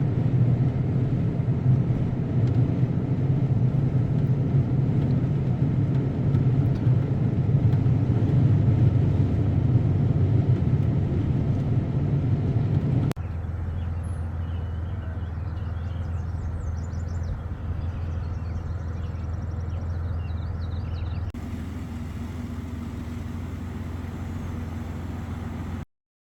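A loud, steady low rumble that cuts off about halfway. It gives way to a quieter low hum with birds chirping over it for several seconds, and a further cut to a different low hum near the end.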